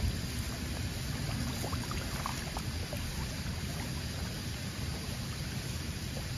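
Water churning and splashing steadily as a dense crowd of catfish thrash at the surface in a feeding frenzy, with a few faint clicks and slaps.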